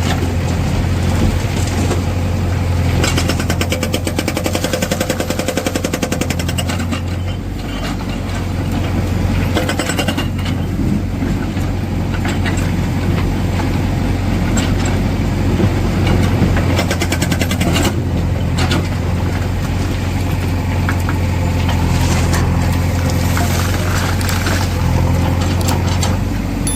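Backhoe loader's diesel engine running while its hydraulic rock breaker hammers in rapid strokes, in several spells, the heaviest a few seconds in.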